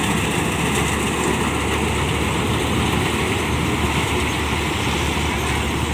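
Kuldeep 932 combine harvester running steadily: an even, unbroken engine and machinery noise.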